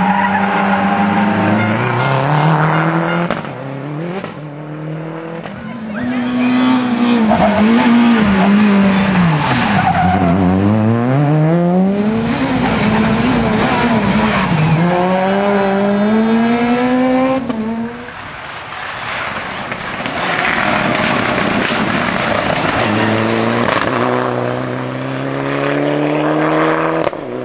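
Rally car engines at full throttle as several cars pass in turn, among them a Peugeot 207 S2000 and a Mitsubishi Lancer Evolution. The pitch drops as each car brakes and shifts down, then climbs steeply as it accelerates away through the gears.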